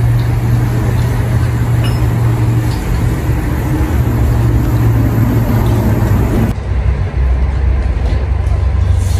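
Steady low drone of road traffic on a highway close by. About two-thirds of the way through it deepens.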